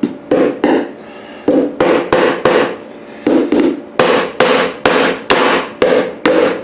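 A hammer driving nails into a wooden antenna base: about fifteen sharp blows in quick, uneven runs, each leaving a short ringing.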